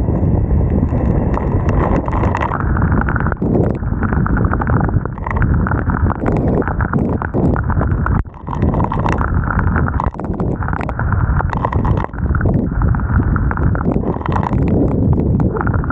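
Loud, uneven rumble with many irregular knocks on the microphones of a helmet-mounted 360 camera while cycling in wind and rain, briefly dropping away about eight and twelve seconds in.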